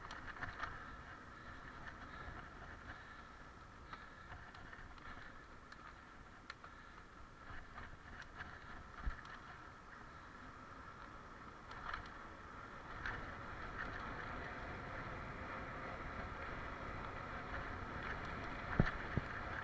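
Mountain bike rolling along an asphalt path: a steady rumble of tyres and wind noise, with small knocks and rattles over bumps and one sharper knock near the end.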